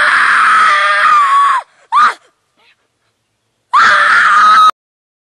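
A boy screaming in acted terror, high-pitched and as loud as he can. A long scream is followed by a short cry about two seconds in. A second scream of about a second near the end cuts off suddenly.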